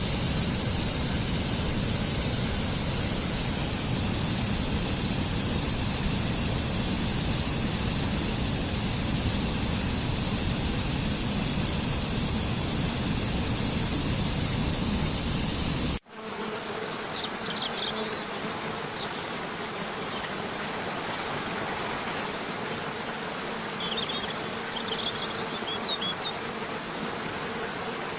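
Outdoor ambience: a steady, high insect-like buzzing hiss over a low rumble, which cuts off abruptly about 16 seconds in. Quieter ambience follows, with a few short, high chirps.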